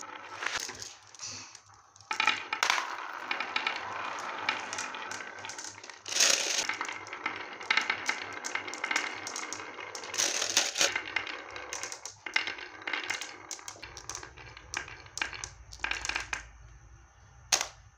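Glass marbles rolling down the wavy groove of a wooden HABA slope and clacking against each other as they pile up, a dense rattle of clicks. In the last few seconds it thins to scattered clicks, with one sharp click near the end.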